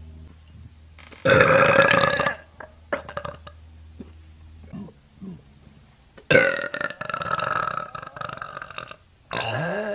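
A young woman burping three times: a burp of about a second starting a second in, a long one of over two seconds after the middle, and another starting near the end that rises in pitch.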